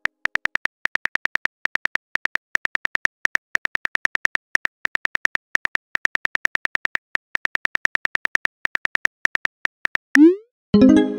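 Phone keyboard typing-sound effect: rapid, even taps, several a second, as a text message is typed out. Near the end comes a quick rising swoosh, as the message is sent, followed by a short pitched chime.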